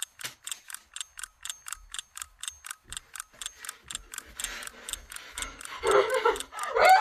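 Steady clock-like ticking, about four ticks a second, the countdown of a Saw-style reverse bear trap. From about six seconds in, a woman cries out in panic over the ticking.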